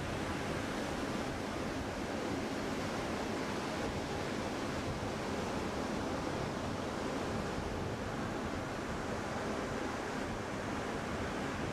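Ocean surf washing onto a beach, a continuous even rush of breaking waves with no single crash standing out.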